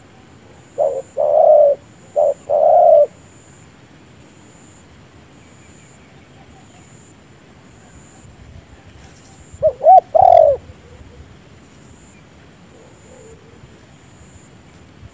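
Spotted doves cooing: a phrase of short and longer coos about a second in, and a second phrase about ten seconds in.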